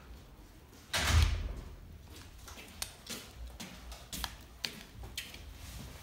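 Handling noise of small plastic parts and a corrugated hose on a tabletop: a brief loud rustling scrape about a second in, then scattered light clicks and taps.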